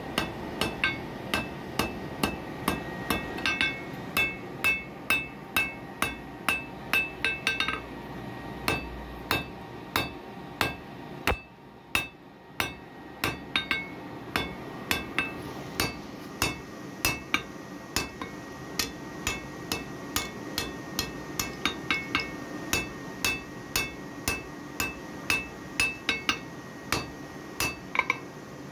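Hand hammer striking a red-hot iron bar on an anvil, steady blows about two a second, each with a bright metallic ring. There is a short break in the hammering about eleven seconds in.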